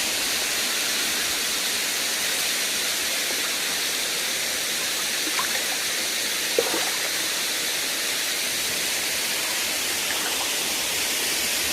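Steady rush of water from a waterfall, an even hiss that holds at one level, with a faint click a little past halfway.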